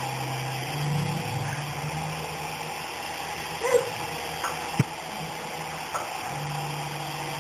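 Micro RC helicopter's rotor motors whirring steadily at floor level, the hum shifting up and down in pitch as the throttle changes. A few short squeaks and a sharp tap come near the middle.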